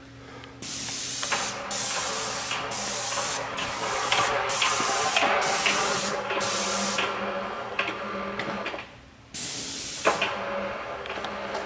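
Paint spray gun spraying primer onto cabinet doors in short, loud hissing passes: about seven back to back, then a pause and one more near the end. A steady low hum runs underneath.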